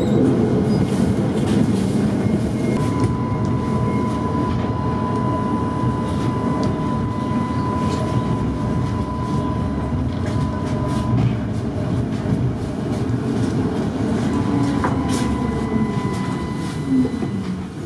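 Tatra T5C5 tram heard from inside the car while running along the track: a steady rumble of wheels on rails with scattered clicks over rail joints. A thin steady whine comes in about three seconds in, drops out around eleven seconds, and returns near the end.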